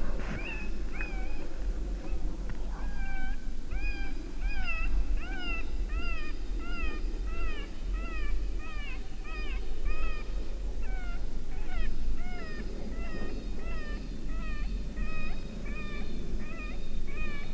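Predator call playing a high-pitched whining distress sound: short calls repeated about twice a second, each rising then falling in pitch, used to lure coyotes in. A low rumble of wind on the microphone runs underneath.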